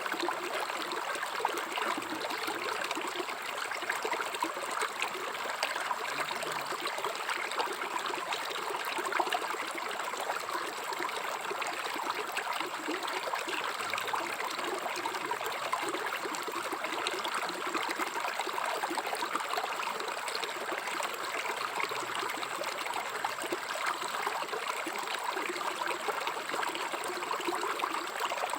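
River water flowing and burbling over rocks: a steady, even rush with many small gurgles and splashes.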